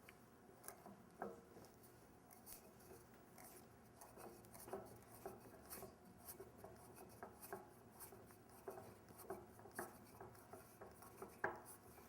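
Faint, irregular small clicks and creaks of a maple bowl blank being screwed onto a lathe chuck's screw center, wood rubbing and biting on the threads. The sharpest click comes near the end.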